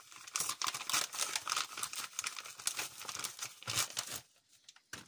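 Packaging crinkling and rustling as it is handled and opened, a dense crackle that stops about four seconds in.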